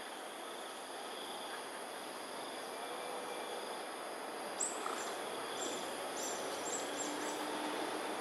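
Steady evening insect chorus over a background hum of outdoor noise. A little past halfway, a quick run of about seven short, high-pitched chirps joins it.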